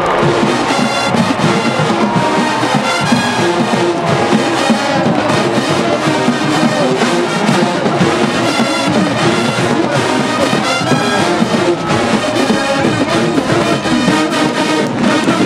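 College marching band playing a halftime show: a full brass section of trumpets and trombones over drums, loud and continuous.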